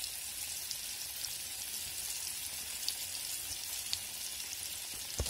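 Rice-flour-coated surmai (seer fish) steaks shallow-frying in oil in a tawa on a medium flame: a steady sizzle with scattered small crackles. A single soft knock near the end.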